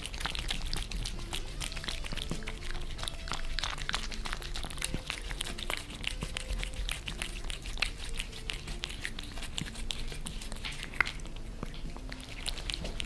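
Two cats licking and smacking at a lickable treat close to the microphone: a rapid, irregular run of small tongue and lip clicks.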